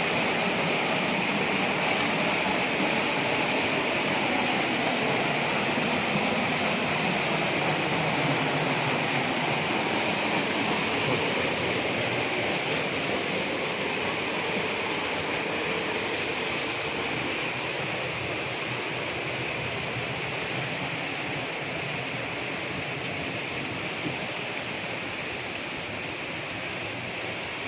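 Steady rushing noise of a waterfall, growing slowly fainter.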